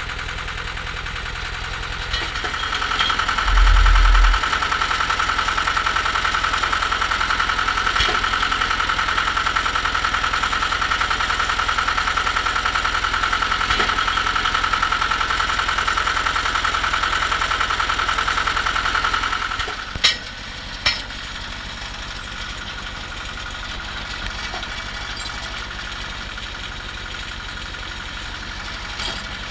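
Cable percussion drilling rig's engine running steadily. A high whine over it stops about twenty seconds in and is followed by two sharp clanks. There is a brief deep rumble about four seconds in.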